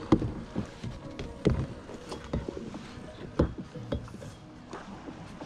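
Kayak paddling: sharp knocks of the paddle against the plastic hull, about one a second, over the wash of the strokes in the water. The knocks fade out near the end.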